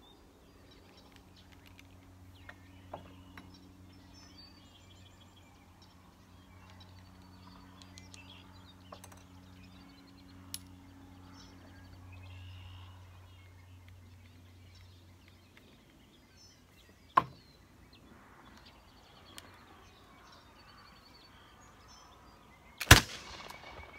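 A British dragoon flintlock pistol firing one loud black-powder shot near the end, with ringing after the report. Earlier there is a single sharp click, birds chirp faintly, and a low steady hum runs for most of the first two-thirds, then stops.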